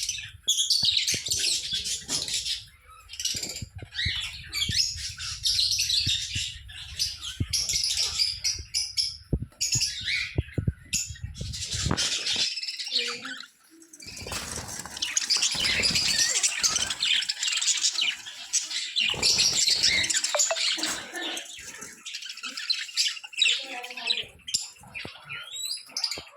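Many caged birds chirping and squawking together, a dense, unbroken chatter of overlapping high calls.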